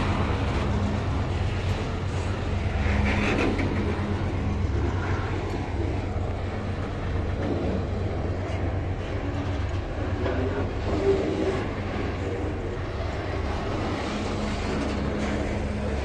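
Loaded HPT hopper wagons of a freight train rolling past, a steady rumble of steel wheels on the rails with a few faint clicks.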